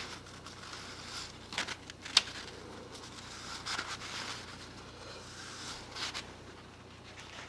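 Paper towel rubbing and rustling on a model rocket's cardboard body tube while excess wood glue is wiped off, in soft scattered swishes with a sharp tick about two seconds in.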